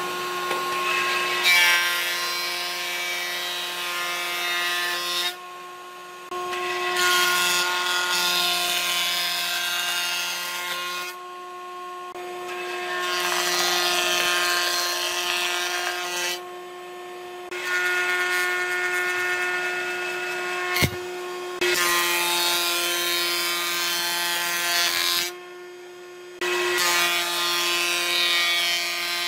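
Thickness planer on a combination jointer-planer running, its steady motor hum overlaid by six passes of a board through the cutterhead. Each pass is a few seconds of loud cutting, with short gaps of idling between them. A single sharp knock comes about two-thirds of the way through.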